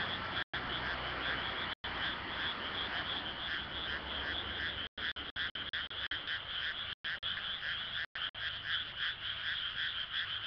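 A chorus of frogs croaking, a dense, steady run of calls at about three a second. The sound cuts out for an instant a few times.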